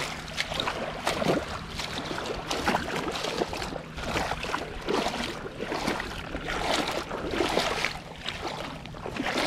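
Shallow seawater sloshing and splashing around wading legs and a hand held in the water, in an irregular run of small splashes.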